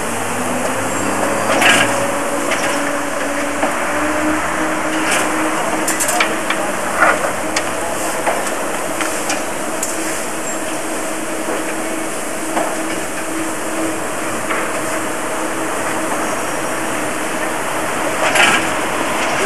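Steam locomotive 03 1010, a DR class 03.10 Pacific, standing at a coaling plant: a steady hiss of steam with a steady whine beneath it. A few sharp knocks and clanks of coal and metal are scattered through, the loudest about two seconds in and near the end.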